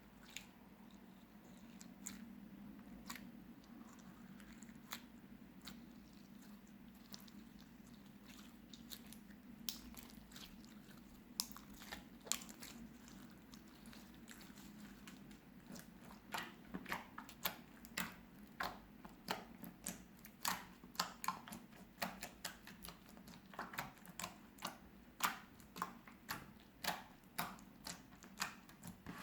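Clear slime mixed with colored rice being squished and pressed by hand, giving crunchy crackling pops. The pops are sparse at first, then come about twice a second from about halfway through.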